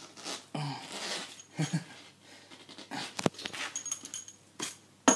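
Hand-handling noise and a few sharp clicks as the end fitting of a flexible insulated hose is fitted to a valve, with short breathy sounds and brief hums from the man doing the work.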